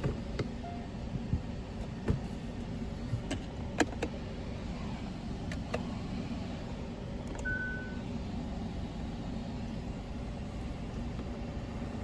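A car engine running steadily at idle, with a few light clicks and one short beep about seven seconds in.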